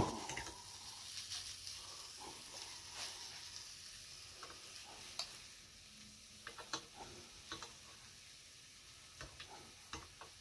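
Large raw stuffed hamburger patty sizzling faintly on a hot George Foreman grill plate, with scattered small pops and clicks through the sizzle.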